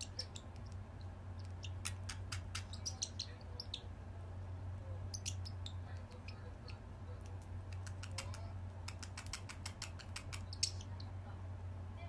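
A small blue parrotlet making quick, high chirps and clicks in scattered clusters, over a steady low hum.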